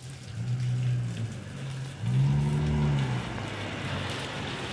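Cars passing on a rain-wet street, engine hum swelling and fading twice and loudest from about two seconds in, with a tyre hiss building near the end. Steady rain falls on pavement underneath.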